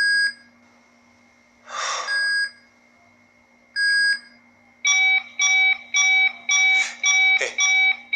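Electronic alarm beeping: single short high beeps about two seconds apart, then a quick run of about two beeps a second from about five seconds in.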